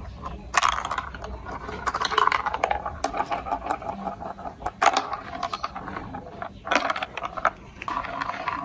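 Marbles rolling and clattering along a plastic building-block marble run, a busy stream of hard little clicks and rattles with several louder clatters.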